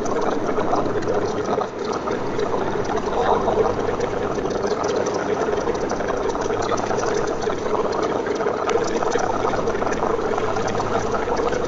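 Rain falling on a car's roof and windscreen, a dense steady patter of many small drops, over a low steady hum.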